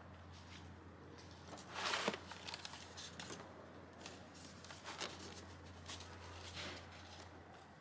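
Faint rustling and light clicks of small things being handled, the clearest about two seconds in, over a steady low hum.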